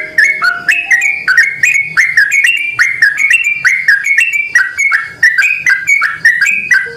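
Yellow-vented bulbul singing a long, unbroken run of bubbly whistled notes, several a second, the lure-type song played to draw in other bulbuls.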